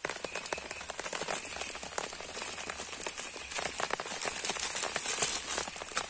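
Rain pattering on a surface: a dense run of irregular ticks over a steady hiss.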